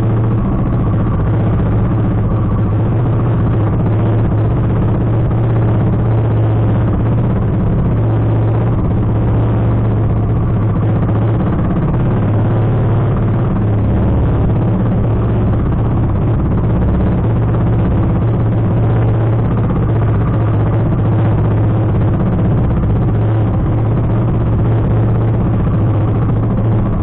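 Outrigger boat (bangka) engine running steadily under way, a constant low hum with no change in speed.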